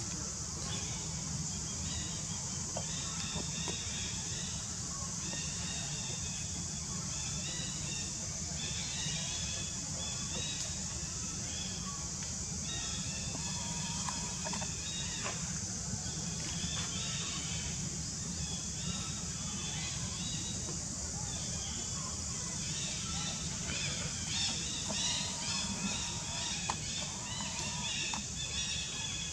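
Outdoor forest ambience: birds chirping again and again, most often near the end, over a steady high-pitched hiss and a low rumble.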